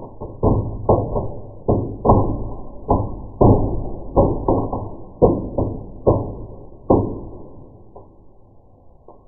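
Fireworks going off in a fireplace, heard slowed down: a loud, irregular series of dull bangs, each with a trailing decay, coming one or two a second, then thinning out and dying away after about seven seconds.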